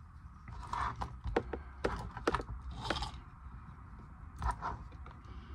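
Light clicks and small knocks of a model locomotive chassis being handled and turned on the workbench mat, several close together over a second or so, then one more later on.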